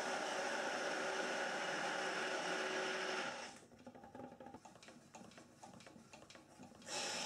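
Handheld stick blender motor running steadily in a pot of soap batter, mixing it toward trace. It stops about three and a half seconds in, leaving a quieter stretch of faint clicks and knocks, and starts running again near the end.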